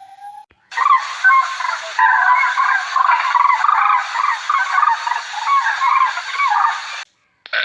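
A group of fowl calling: many short, wavering calls overlap in a dense chatter that starts about a second in and stops abruptly near the end.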